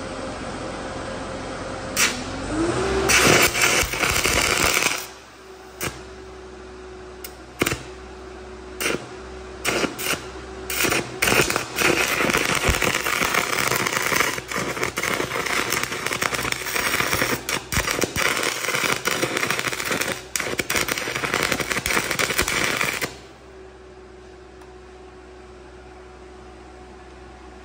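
Heavy stick-welding arc crackling and sputtering, fed by an engine-driven Air Pak welder whose engine revs up from idle as the arc is first struck. A short burn is followed by several brief arc starts and stops, then a long continuous burn of about twelve seconds that cuts off suddenly, leaving the engine running at its higher weld speed.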